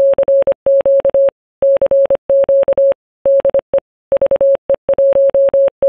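Morse code sent as one pure beep tone, keyed on and off in short dots and longer dashes, grouped into characters with short pauses between them.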